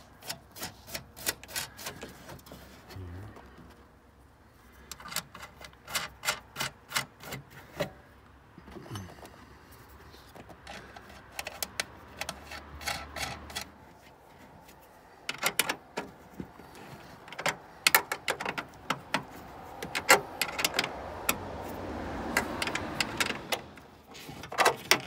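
Ratchet wrench clicking in several runs of rapid clicks with short pauses between, as it tightens the nuts that hold a taillight assembly on its studs.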